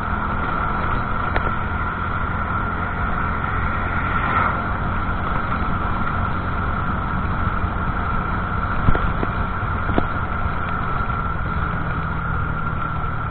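Motorcycle running steadily while being ridden along a road, with a steady high whine over the engine sound and a couple of faint clicks.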